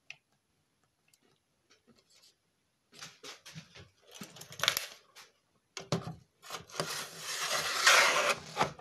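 Metal case of a silverfish-type e-bike battery scraping and knocking against the mounting slider plate as it is lowered and slid onto it for a trial fit, after a few light clicks of metal parts being handled about three seconds in. The scraping is loudest near the end.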